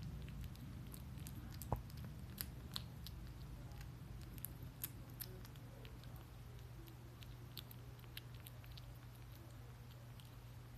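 A kitten chewing wet cat food from a bowl: faint, irregular small wet clicks, with one sharper click about two seconds in.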